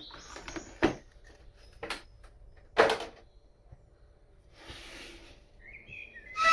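The screwdriver set's package being handled and opened: a few sharp clicks and knocks, the loudest about three seconds in, a brief rustle, then near the end a terrible squeaky noise that slides in pitch.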